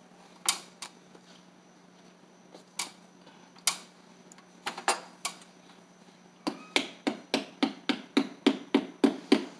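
A hand tool knocking against the top of the window frame while a blind bracket is fitted. A few scattered knocks come first, then from about six and a half seconds a steady run of sharp taps, about four a second.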